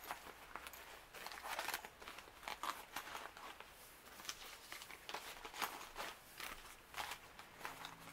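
Foil sheet-mask sachets crinkling and rustling as they are handled and shuffled, in a quiet, irregular string of short crackles.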